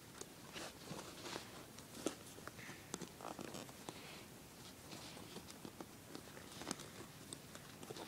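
Faint, irregular rustling and small clicks of fingers pulling fabric loops over and under on a plastic potholder loom and hooking them onto its pegs, with a sharper click about two seconds in.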